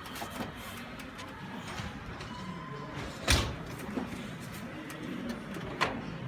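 A heavy thump about three seconds in and a sharper knock near the end, over steady background noise.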